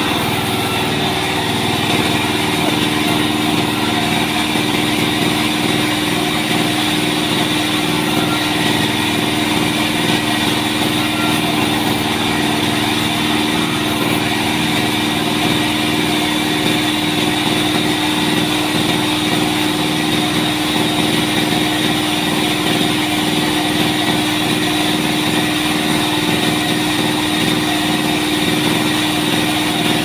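Large vertical band saw running steadily with a constant mechanical hum as trembesi (rain tree) timber is sawn into planks.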